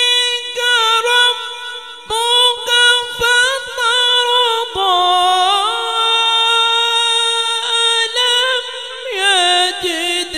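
A male qari's solo voice reciting the Quran in a melodic, chanted tajweed style. He holds long, ornamented notes that waver and then step down in pitch.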